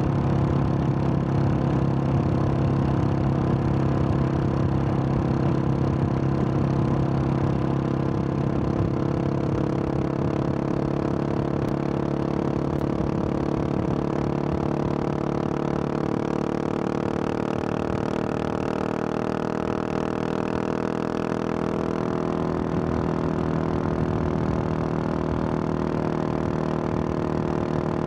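Husqvarna 701 Supermoto's single-cylinder engine running at a steady cruise through its Wings aftermarket exhaust, the engine note drifting slightly in pitch partway through.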